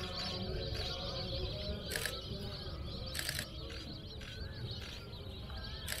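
DSLR camera shutters firing in three quick bursts of continuous shooting, about two seconds in, just after three seconds in and at the very end, with faint bird calls between them.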